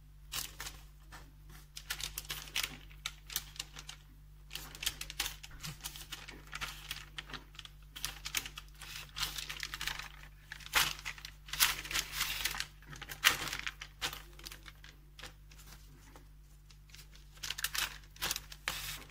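Parchment paper crinkling and rustling irregularly under the hands as a sheet of dough with poppy-seed filling is rolled up on it.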